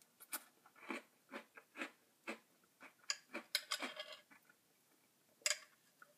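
Lucky Charms cereal being chewed, a run of short crunches about two a second. About three seconds in comes a quick cluster of sharper clicks, and near the end a single sharp clink, as a metal spoon scrapes and knocks in a ceramic bowl.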